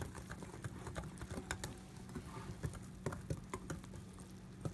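A utensil stirring thick pancake batter in a bowl, knocking against the bowl in irregular clicks and taps.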